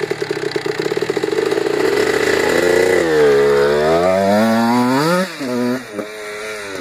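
Kawasaki KX65 single-cylinder two-stroke dirt bike engine idling with a rapid beat, then revving up as the bike pulls away. Its pitch climbs, drops sharply about five seconds in, and climbs again as the rider works the throttle.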